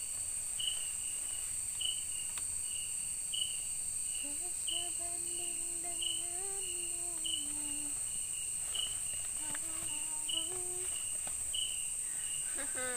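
Night forest insect chorus: a steady high-pitched buzz with a short chirp repeating about every second and a half. A soft low voice on held notes, like quiet humming, comes in at about four seconds and again near ten seconds.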